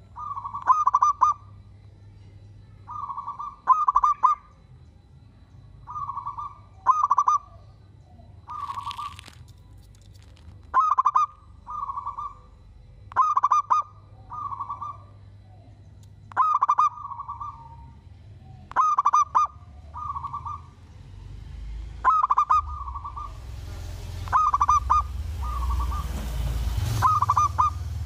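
Zebra doves (perkutut) cooing: repeated short phrases of quick staccato coo notes every couple of seconds, loud ones alternating with fainter ones. A rustling hiss builds in the last few seconds.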